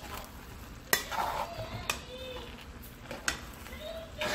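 A metal serving spoon scraping through cooked rice and knocking against the side of an aluminium caldero as the rice is turned over, with a few sharp clinks at about one, two and three seconds in.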